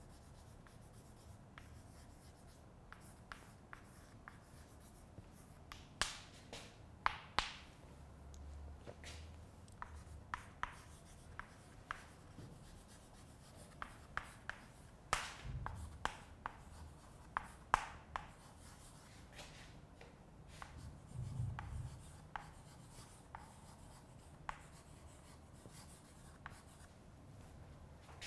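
Chalk writing on a blackboard: irregular taps and short scratchy strokes as letters are written, faint throughout.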